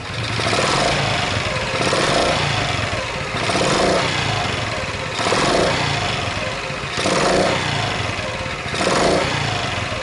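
Honda Chaly's small four-stroke single engine revved in about six short blips from idle, with loud intake noise through an aftermarket pod air filter. Under the revs runs a light clattering ('kata-kata') that the owner is tracing, first suspected in the cam chain or cylinder head and now maybe deeper in the engine.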